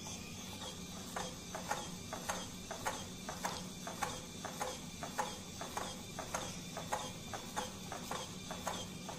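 LEGO SPIKE Essential motor running with a steady whine as it drives a LEGO earthquake shake table. From about a second in, the table's plastic LEGO parts knock at an even beat, a little under twice a second.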